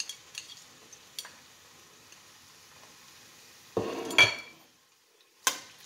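Chopped onions frying in hot oil in a nonstick pot, sizzling faintly, with a few light scrapes of a spatula. There is a loud clatter about four seconds in and a sharp click near the end.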